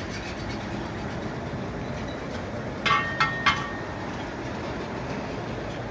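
Three quick ringing metal clinks, about a third of a second apart, over a steady low rumble of machinery.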